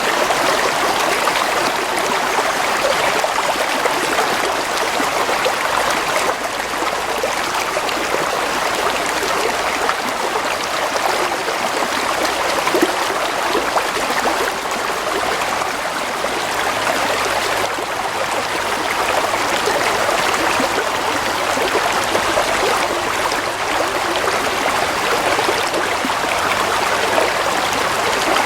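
Stream of water flowing steadily, with a trickling, babbling rush.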